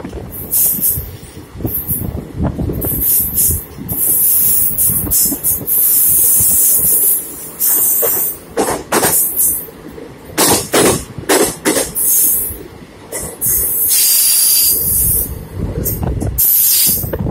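Indian Railways passenger train running along the track, its wheels and coaches rumbling, with ragged gusts of wind hitting the microphone.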